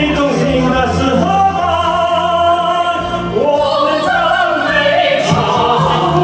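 Karaoke singing into a handheld microphone over a recorded backing track.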